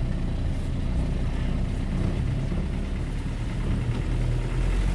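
Vehicle engine running steadily at low revs, a low drone.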